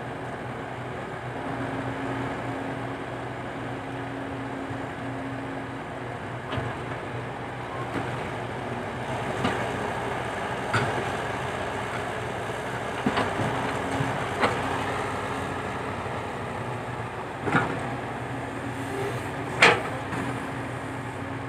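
Komatsu PC120-5 hydraulic excavator at work, its diesel engine running steadily. From about six seconds in come irregular sharp metallic clanks, about eight of them, some ringing briefly, the loudest near the end.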